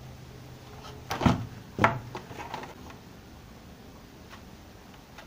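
Cutting pliers snipping and stripping an insulated electrical wire: two sharp clicks about half a second apart, a second or so in, followed by faint handling of the wire.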